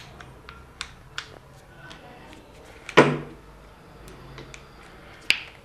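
Aluminium tripod legs and leg-lock catches of a Digitek DTR-520BH tripod clicking and knocking as they are handled and adjusted. There are a few sharp clicks, a louder knock about three seconds in, and another click near the end.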